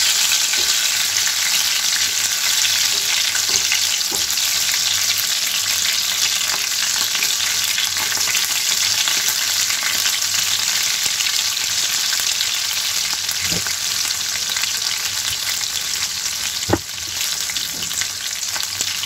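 Batter-coated prawns deep-frying in hot mustard oil in a wok, a steady dense crackling sizzle, with a few small clicks and a single sharp knock near the end.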